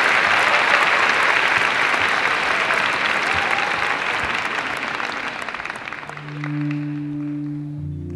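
Theatre audience applauding, fading out over several seconds. About six seconds in, low sustained music notes begin.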